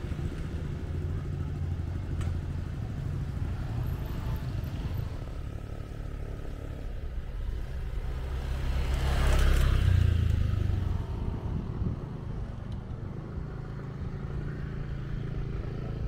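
Riding a motorcycle: a steady low rumble of engine, road and wind noise on the microphone, swelling louder about nine to ten seconds in.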